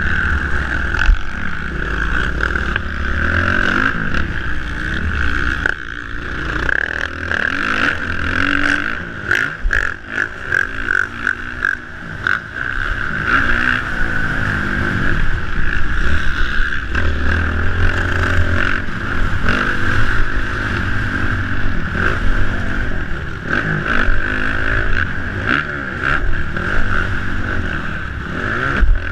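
Motocross bike engine revving up and falling back again and again as the bike is raced over the track, with wind noise on the microphone. A cluster of clattering knocks comes about a third of the way through.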